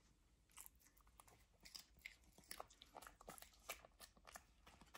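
A Bichon Frise dog chewing a piece of crunchy food: a series of faint, irregular crunches, several a second.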